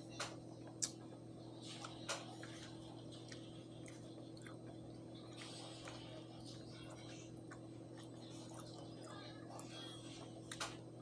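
Quiet eating at a table: a spoon clicks against the plate three times in the first two seconds and once more near the end, with soft chewing and mouth noises in between, over a faint steady low hum.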